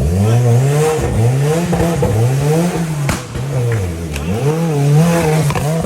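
Off-road competition 4x4's engine revving up and down again and again, its pitch rising and falling every second or so as the driver works the throttle, with a couple of sharp knocks from the vehicle.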